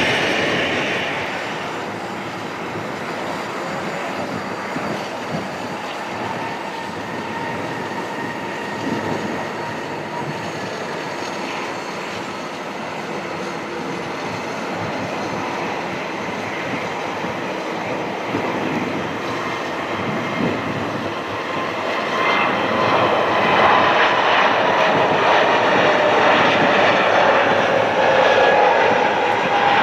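Airbus A320neo's Pratt & Whitney PW1100G geared turbofans running at low thrust as the jet taxis and lines up. About 22 seconds in they spool up to takeoff power, growing louder with a strong whine as the jet accelerates down the runway and lifts off. Near the end the pitch falls as it passes.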